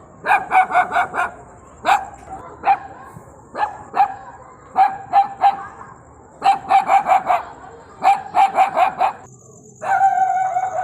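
Puppy barking in quick volleys of four to six barks, with single barks in between, then a longer drawn-out cry near the end.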